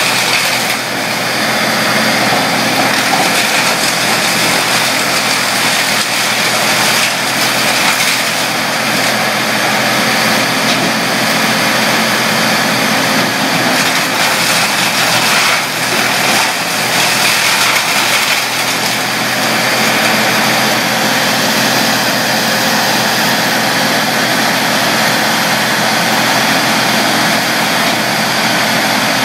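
Trailer-mounted Bandit brush chipper running at working speed while branches are fed into it, a loud steady engine and drum noise with the crackle of wood being chipped. Brief louder bursts come now and then as bigger pieces are taken in.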